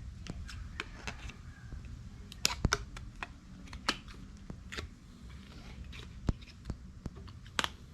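Scissors cutting a piece of cardstock business card, a string of irregular sharp snips and clicks with paper handling noise.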